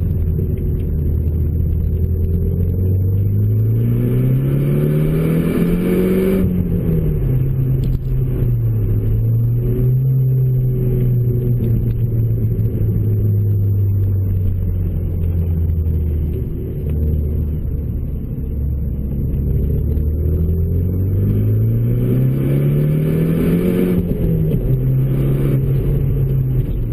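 Renault Mégane RS's 2.0-litre turbocharged four-cylinder with a K-Tec Racing 70 mm full exhaust, heard from inside the cabin. It accelerates twice, its note rising steadily for about four seconds and then dropping sharply at the lift or gear change, once a few seconds in and again near the end, and cruises at a steady lower note in between.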